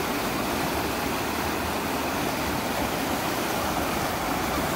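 River rapids rushing: fast, shallow water pouring over rock ledges as a steady, even rush of whitewater.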